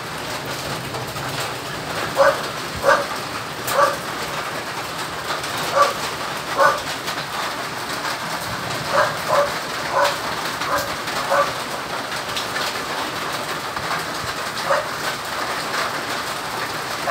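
A dog barking in short, high yaps, about fifteen of them at uneven spacing, over a steady hiss.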